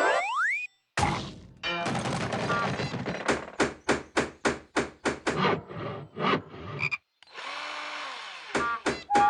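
Cartoon sound effects: a short rising glide, then a rapid run of sharp clattering hits, about three a second, followed near the end by a brief rushing noise and a few more hits.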